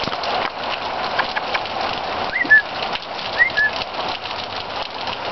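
Steady rain falling, with many individual drops ticking close by. A bird calls twice, about a second apart, each time a short upward-sweeping note followed by a short level note.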